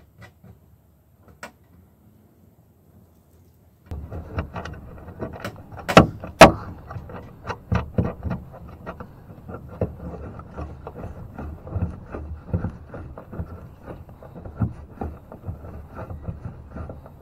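Close rubbing, clicking and knocking of hands, wires and metal parts in an RV air conditioner's ceiling opening, right at the microphone. It starts suddenly about four seconds in, with two sharp knocks a couple of seconds later; before that there are only a few faint ticks.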